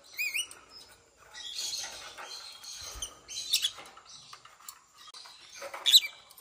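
Lovebirds chirping, with a few quick wavering high chirps at the start and a sharp, loud chirp near the end. Between them come soft scattered nibbling and rustling sounds as the birds feed on napa cabbage leaves in a plastic dish.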